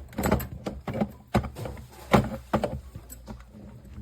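Clicks and knocks of an espresso machine's metal portafilter being fitted into the group head and twisted into its lock, several sharp knocks in irregular succession.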